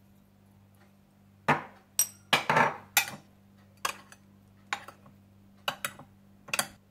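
A metal spoon knocking and clinking against a bowl as salt and crushed black pepper are mixed into prawns: about ten sharp strikes, bunched in the first half and spaced out later.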